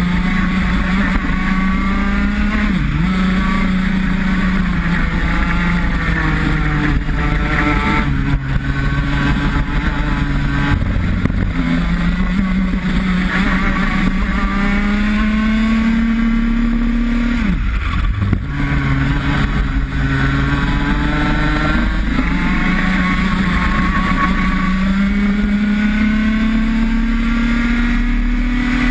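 X30 125cc two-stroke kart engine heard onboard at racing speed. Its pitch climbs steadily along the straights and falls off sharply three or four times as the throttle is lifted for corners.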